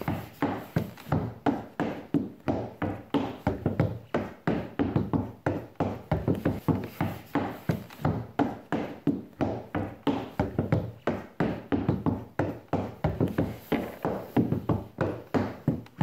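Dance steps in trainers on a wooden floor: a fast, even run of taps and thumps on the floorboards, about four a second.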